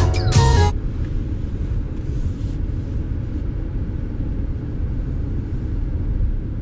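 Music cuts off under a second in, leaving a steady low rumble of the Rolls-Royce Spectre Black Badge, an electric car, on the move with no engine note, only road and tyre noise.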